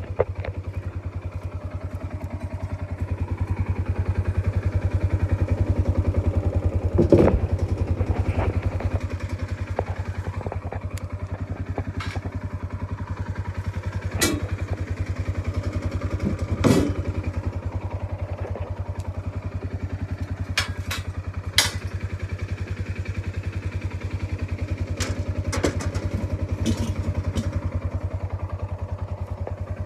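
An engine running steadily at idle, with a few sharp clanks from steel T-posts being loaded up from a pile.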